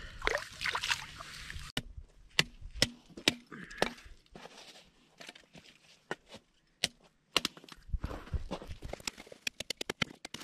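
Dry sticks and twigs snapping and knocking together as kindling is broken by hand and laid for a campfire: a series of sharp cracks at irregular intervals, with a quick run of small snaps near the end. It opens with a short stretch of water splashing at an ice-fishing hole as a lake trout is let back down.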